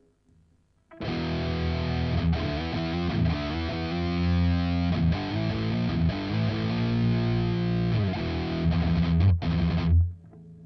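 Electric guitar played through a LY-ROCK BE-OD Deluxe overdrive pedal: heavily distorted chords and riffs that start about a second in, ring on with note changes, and are cut off sharply near the end.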